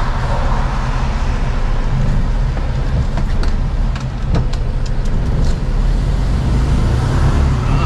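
Diesel engine and road noise heard inside a Mercedes-Benz Actros truck cab while driving, a steady low hum with a few faint clicks about halfway through.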